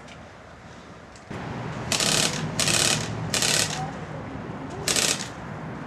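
Four short rattling bursts, each under half a second, about two, two and a half, three and a half and five seconds in, over a steady background noise that rises about a second in.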